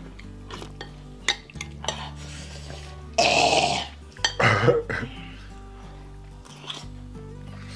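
Metal spoons clicking and scraping against ceramic bowls, several sharp clicks in the first two seconds. About three seconds in comes a loud breathy rush of air from one of the eaters lasting about a second, then a shorter one, as the hot pepper soup burns.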